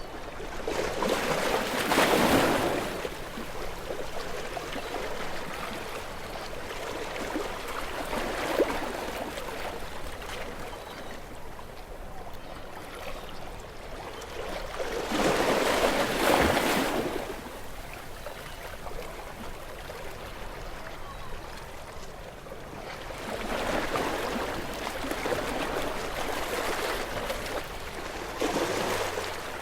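Sea waves breaking on rocks: a steady wash of surf, with louder crashes about two seconds in and near the middle, and a longer swell near the end.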